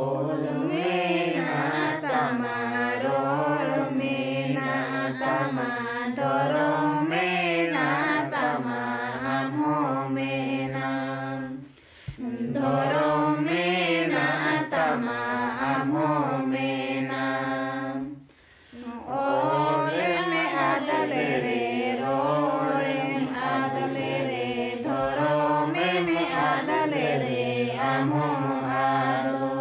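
A group of men and women singing a song together, in long phrases with short breaks about 12 and 18 seconds in.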